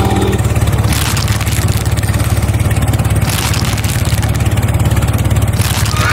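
A vehicle engine running steadily with a fast, even low pulse. Brief bursts of hiss come about every two and a half seconds.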